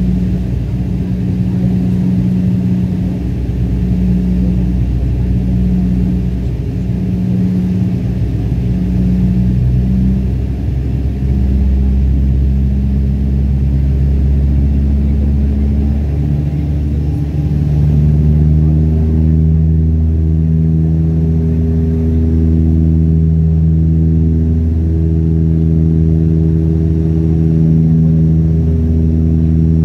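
Turboprop airliner's engines and propellers droning inside the passenger cabin, a loud steady hum of several low tones that waver in a slow beat. About 17 seconds in the drone shifts pitch and higher tones join it.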